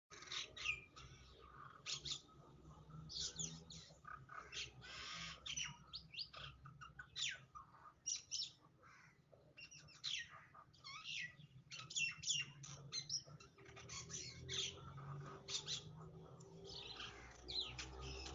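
Small birds chirping: many short, quick, falling calls overlapping one another throughout, over a low steady hum.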